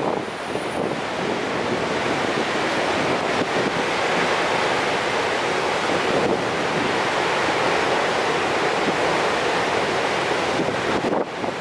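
Steady rushing of a large, high-volume waterfall, the High Falls of the Genesee River, with wind buffeting the microphone.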